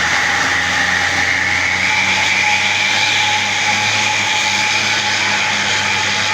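A bus engine running steadily: a continuous noise with a thin steady whine and a low hum under it.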